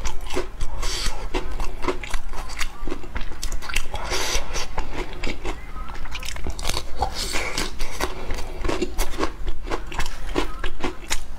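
Close-miked chewing and biting of soft cake sandwiched between chocolate biscuits, with many short, irregular mouth clicks throughout.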